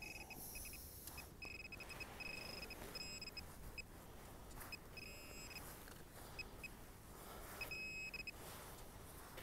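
Handheld metal-detecting pinpointer beeping as it is pushed through the sand toward a buried target: a high electronic tone coming in quick runs of short beeps and short steady tones, repeated several times.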